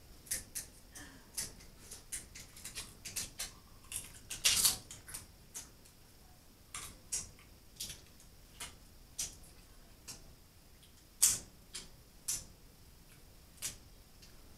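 Irregular sharp clicks and cracks of snow crab and shrimp shells being snapped and picked apart by hand, about two or three a second, with louder snaps twice.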